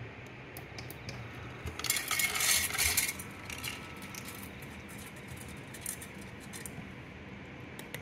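Automatic pet feeder dispensing dry kibble: a rattle of pellets pouring into its bowl for about a second, starting about two seconds in. Scattered light clicks follow as the cat eats the kibble.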